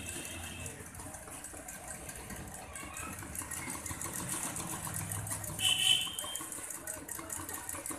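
Domestic sewing machine stitching with a fast, fine ticking while cloth is shifted under the presser foot. A brief high tone sounds at the very start and again, louder, about six seconds in.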